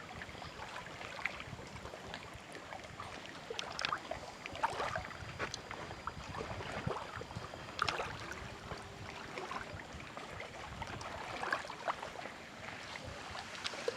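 Small waves lapping at the shoreline, with irregular little splashes and clicks.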